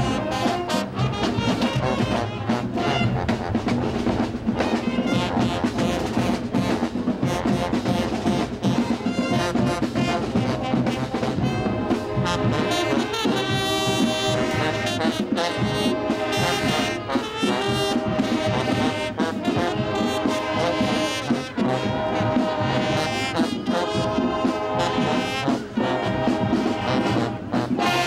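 High school marching band playing, its brass (trumpets and trombones) carrying the tune. From about halfway in, the brass plays strong repeated chords on a steady beat.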